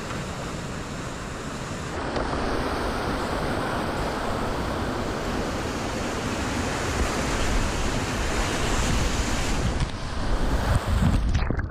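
Whitewater rapids rushing close around a kayak, with wind buffeting the microphone. The rushing grows a little louder about two seconds in, and near the end there are heavy low thumps and splashes as the boat drops through the white water.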